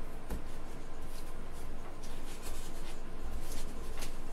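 Black foam packing inserts being pulled and worked out of a 3D printer's frame: irregular rubbing and scraping strokes, with a light knock about a third of a second in and another near the end.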